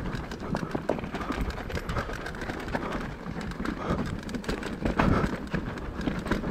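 Mountain bike clattering down a rough dirt trail: a steady rush of tyre and wind noise broken by many sharp knocks and rattles.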